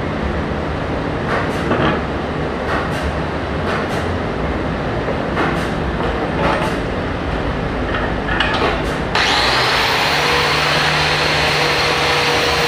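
Scattered knocks over a steady low background hum, then about nine seconds in a power tool starts suddenly and runs steadily with a high whine, cleaning dirt and rust off a motorcycle exhaust pipe.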